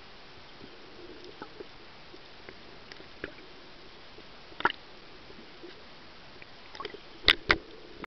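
Muffled underwater hiss of shallow, surging sea water, with scattered faint clicks, a sharp click about halfway through and two loud knocks in quick succession near the end.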